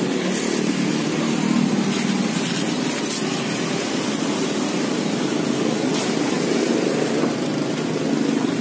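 Steady background noise of a busy street, with a few faint clicks.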